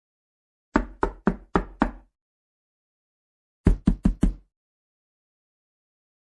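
Knocking on a door: five evenly spaced knocks, then after a pause of about a second and a half, four quicker knocks.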